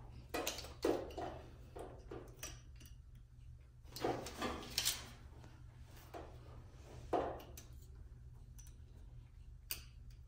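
Small plastic clicks and rattles of wiring-harness connectors being handled and pushed onto the LS V8's plugs, a few sharper snaps scattered through, over a faint steady low hum.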